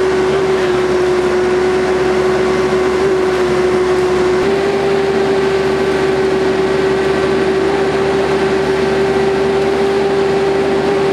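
REED XT39 truck-mounted concrete boom pump running while it pumps concrete through its end hose: a steady, loud mechanical drone with a constant tone over it.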